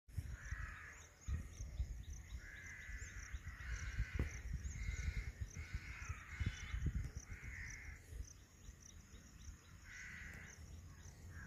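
Faint outdoor bird calls: short calls repeated at irregular intervals, with a thin, high, steady insect-like chirring underneath.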